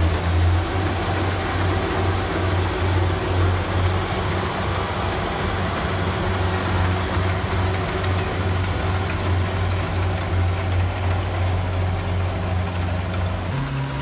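Kubota rice combine harvester working in the paddy: a steady engine hum under a wide, even machine noise as it cuts and threshes. Shortly before the end the low hum jumps to a higher pitch.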